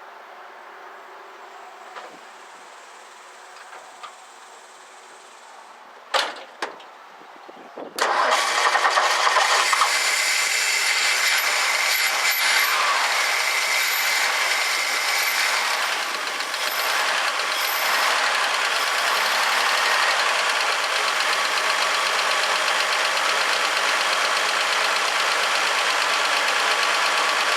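1964 Ford F100 pickup engine, primed with a shot of gas into its freshly rebuilt carburetor, catching suddenly about eight seconds in after two short loud sounds, then running steadily and loudly to the end.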